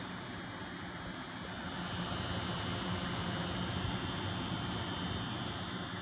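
Noctua NH-D15 CPU cooler's 140 mm fans running steadily in pull configuration, a rush of air with a constant buzz. The buzz comes from the fans pulling air through the heatsink fins; it stops when the fans are disconnected.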